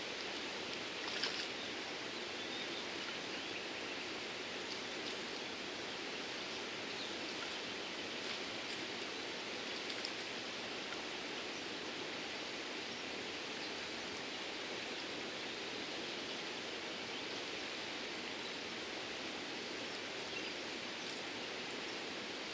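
Steady rush of river water flowing at a dam, with a few faint clicks and brief high chirps over it.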